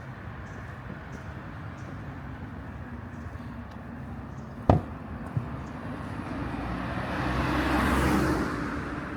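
Street traffic noise with a sharp knock a little before halfway and a fainter one just after; then a car drives past, its sound swelling and fading near the end.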